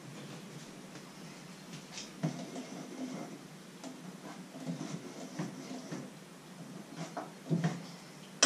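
Kitchen utensils and dishes handled at a worktop: scattered light knocks and clinks, with a sharper click near the end.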